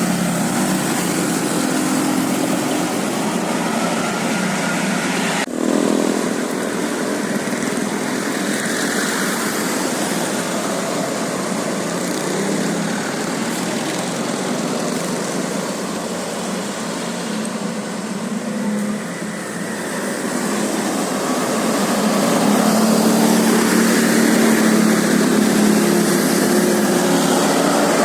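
Road traffic: vehicle engines running steadily, with a heavier engine growing louder for the last few seconds and a single click about five seconds in.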